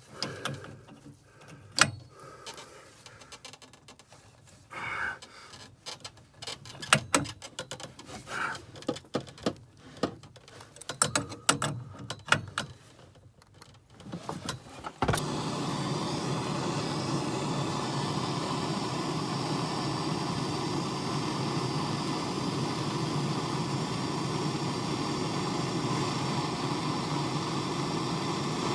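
Scattered clicks, taps and knocks of hand work on metal pipe fittings. About halfway through, a steady hum with hiss starts abruptly and runs evenly, like a fan or motor running.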